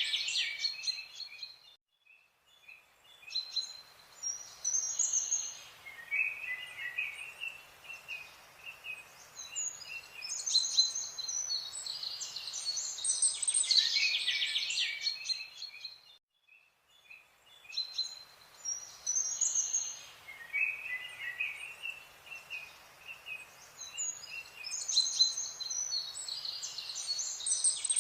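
Several birds chirping and singing in quick trills and short high calls over a faint hiss, broken by two brief pauses. The same stretch of birdsong repeats about every fourteen and a half seconds, like a looped nature-ambience track.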